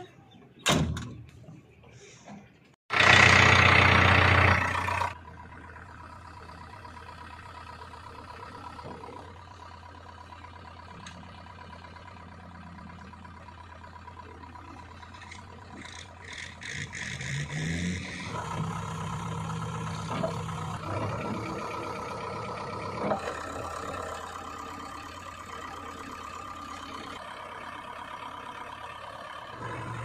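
JCB 3DX backhoe loader: a cab door shuts, then a very loud two-second burst as the diesel engine is started, settling into a steady idle. A little past halfway the engine revs up and runs louder from then on.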